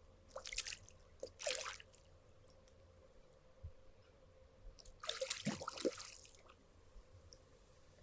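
Splashing and wet squelching in short bursts, two brief ones in the first two seconds and a longer one about five seconds in: a freshly caught pike thrashing in shallow water as it is taken in hand.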